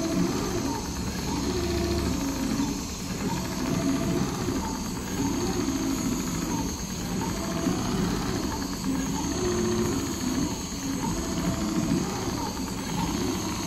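Richpeace large-format CNC sewing machine running steadily, its needle stitching through heavy upholstery material as the sewing head travels across the clamped work.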